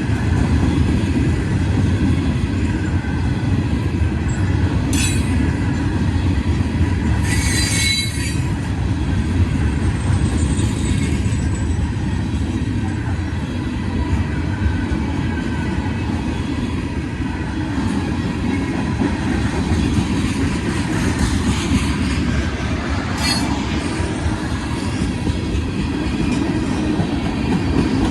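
A train's cars rolling past on the rails with a steady, loud low rumble. Short, high wheel squeals cut in three times: about five seconds in, around eight seconds, and again past twenty seconds.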